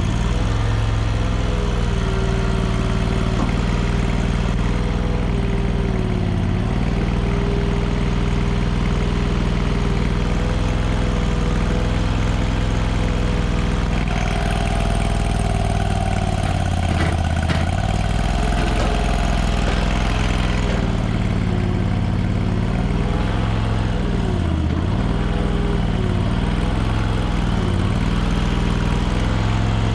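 Small gasoline engine of a cheap Chinese mini skid steer running steadily as the machine is operated, with a whining tone that wavers in pitch. For several seconds about halfway through, a higher whine and a hiss join in. Near the end, the pitch dips and swings a few times.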